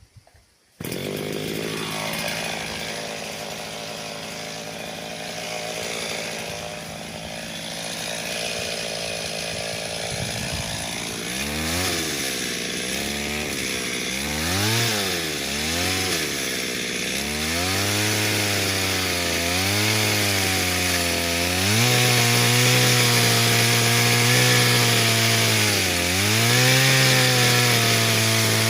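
Chainsaw engine starting up about a second in and running steadily at low speed, then revved up and down several times from about eleven seconds in. Near the end it is held at high speed with brief dips, as when the chain cuts into a tree.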